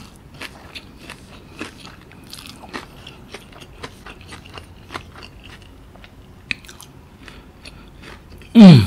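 Close-miked chewing of crispy fried-chicken coating with the mouth closed: irregular small crunches and wet mouth clicks. Just before the end, a short, very loud, low sound from the eater's throat that falls in pitch.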